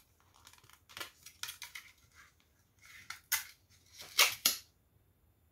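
Thin clear plastic clamshell of a Scentsy wax bar crackling and clicking as it is opened and the wax cubes are pried out: a string of irregular sharp clicks, loudest just after four seconds in.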